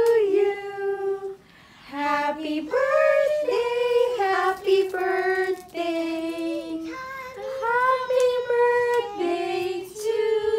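A small group of children and women singing a birthday song together, a slow melody with long held notes.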